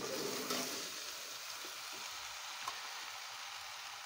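Chicken chowmein sizzling steadily in a metal pan as the noodles are stir-fried and tossed with a metal slotted spoon, with a few light clicks of the spoon against the pan.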